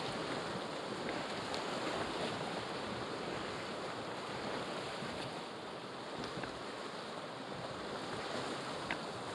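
River rapids rushing, a steady roar of whitewater heard from a canoe running through them, with a few faint clicks.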